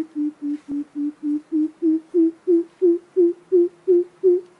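Coucal giving its hooting call: a long, even series of deep 'boop' notes at about three a second. The notes dip slightly in pitch early on, then rise a little and grow louder, slowing a touch as the series goes on.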